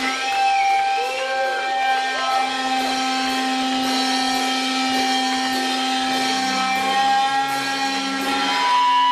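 Electric guitar amplifier feedback: a sustained distorted drone with several steady whining tones, and a few short gliding squeals about a second in.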